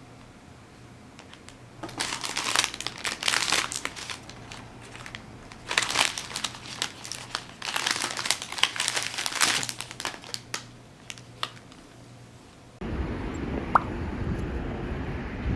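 Crinkling and crunching of something being handled, in two main bursts with scattered crinkles between and after. About thirteen seconds in the sound cuts abruptly to a steady outdoor rumble.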